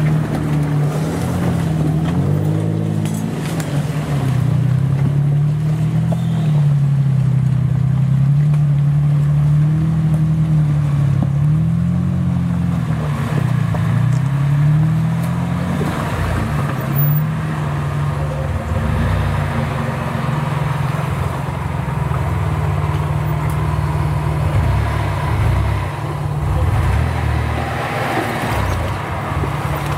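An off-road 4x4's engine running under load, its revs rising and falling over the first fifteen seconds or so. After that it runs at lower, uneven revs, with repeated knocks from the vehicle.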